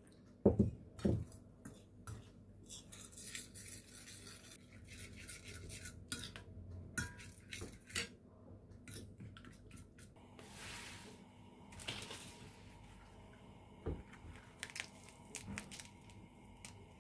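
Kitchen utensils clinking and scraping against dishes: scattered sharp knocks and clicks, the loudest two about half a second and a second in, with a brief hiss around the middle.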